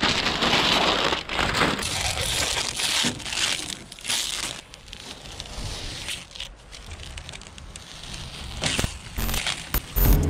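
Masking paper crinkling and crumpling as it is pulled off a freshly spray-painted car's window, then masking tape being peeled away from the window frame. Loudest at first, quieter in the middle, with sharper crackles again near the end.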